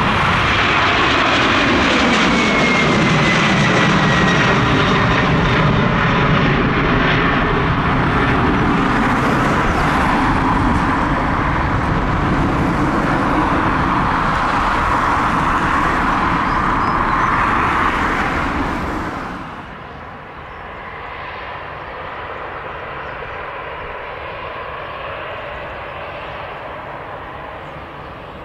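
Boeing 767-400ER's twin General Electric CF6-80C2 turbofans at takeoff thrust as the jet climbs out: a loud, steady jet roar with a whine that falls in pitch in the first few seconds. About nineteen seconds in, it gives way abruptly to much quieter steady airport ground noise.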